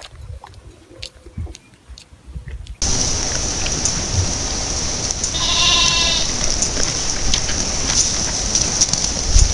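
A goat bleats once, a drawn-out, quavering call, over a steady hiss. Before that, about three seconds in, a quieter stretch with light clicks cuts off abruptly.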